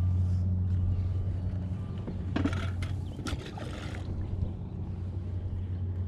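Steady low hum of a boat motor, with a few brief clicks and short rustles of handling about halfway through.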